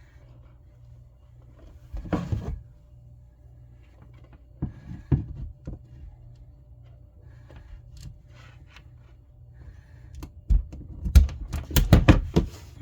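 Knocks and clicks from handling tools and wiring: a few around two and five seconds in, then a cluster of louder thumps and clicks near the end, over a low steady hum.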